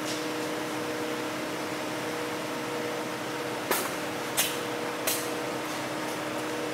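Rod-blank rolling-table machine running with a steady hum, then three sharp clicks spaced about two-thirds of a second apart past the middle as the machine works.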